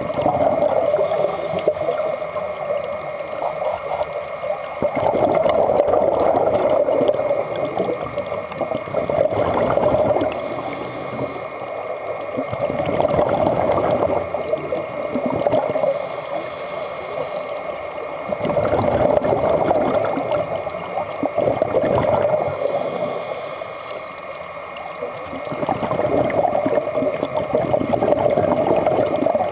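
Scuba breathing heard underwater: a regulator's exhaust bubbles gurgle in bursts that swell and fade every four to five seconds, with a fainter hiss of inhalation through the regulator between some of them.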